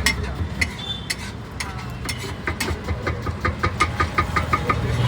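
Sharp metallic clanks of a steel spatula striking a large flat iron tawa, irregular at first, then a quick run of about four or five a second in the second half. A low, steady engine-like hum runs underneath.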